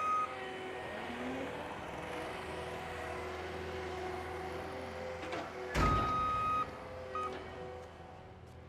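A vehicle's reversing alarm beeps over a steady engine hum: one clear high beep about six seconds in, with a louder bang of noise at the same moment.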